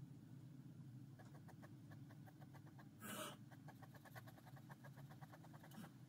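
Faint ballpoint pen scratching on paper in quick, short repeated strokes, several a second, as in hatching or shading. There is one louder brushing sweep about halfway through.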